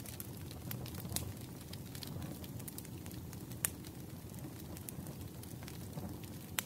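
Crackling wood fire from a fireplace app: a low steady rumble with irregular sharp pops and snaps.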